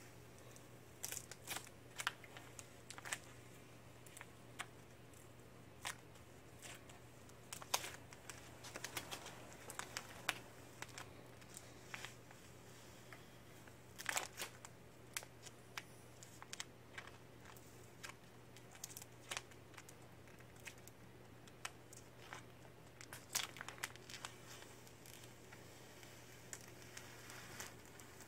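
Vinyl paint stencil being peeled off a spray-painted wooden cabinet by hand, the film crinkling and tearing away in short, irregular crackles.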